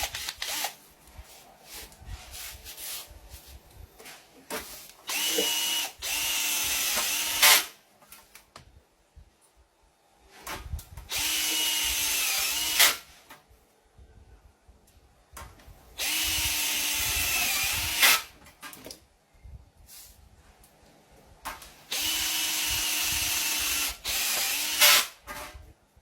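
Cordless drill (sold as a Dewalt 26V) running in four bursts of about two to three seconds, its motor whine dipping in pitch toward the end of each run as it comes under load, then stopping with a sharp crack. The pattern fits screws being driven and seating one after another.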